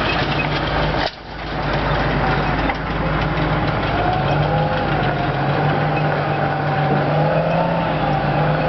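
M113 armoured personnel carrier driving on its tracks over dirt, its engine running steadily, with a whine that comes in about halfway through and rises slightly in pitch.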